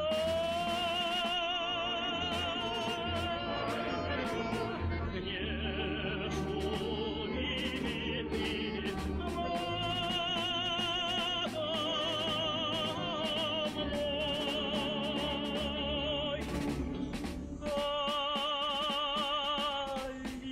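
Background music: a choir recording in an operatic style, long sung notes with strong vibrato, phrases breaking off and starting again twice.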